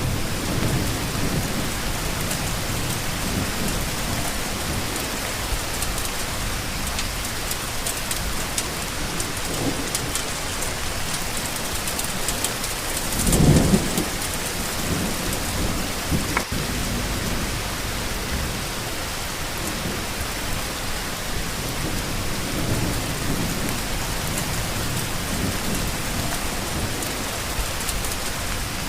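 Steady rain falling, with low rolls of thunder; the loudest rumble comes about halfway through.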